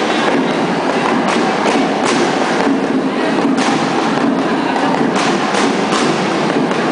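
Loud, steady roar of a cheering crowd and cheer-dance music in a gymnasium, overloading the recording. Sharp hits, claps or stomps, land in short runs about half a second apart.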